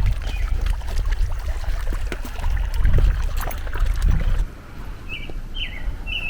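Wind buffeting the microphone, with scattered clicks, easing about four seconds in. A small bird then chirps repeatedly in short whistled notes near the end.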